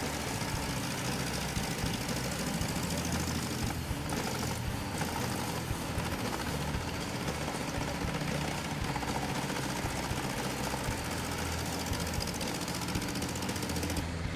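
Lippel Raptor 700 drum wood chipper running steadily on its own engine while chipping logs.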